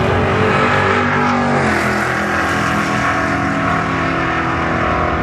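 VW drag car engine at full throttle as the car runs down the drag strip. Its pitch steps down about two seconds in, like a gear change, then holds steady.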